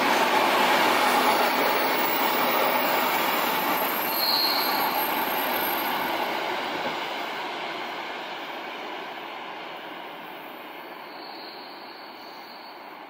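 Railway train running past and moving away, its noise fading steadily. Two brief high wheel squeals, one about four seconds in and a longer one near the end.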